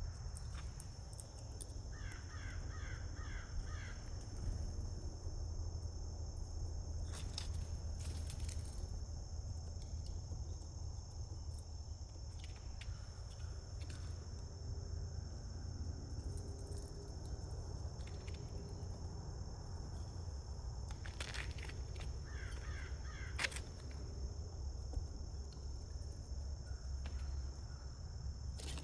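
Crows cawing in two short series of harsh repeated calls, one near the start and one about twenty-two seconds in, over a steady high-pitched insect chorus and a low rumble.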